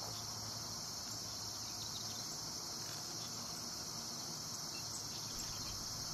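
Steady, high-pitched chorus of insects trilling continuously, without a break.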